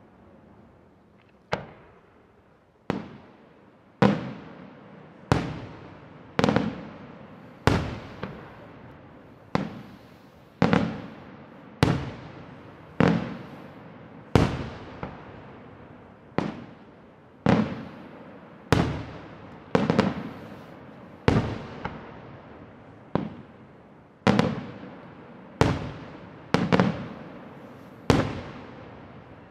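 Aerial firework shells from a Palmese Fireworks display bursting one after another, about one bang a second, each bang trailing off in a rolling echo.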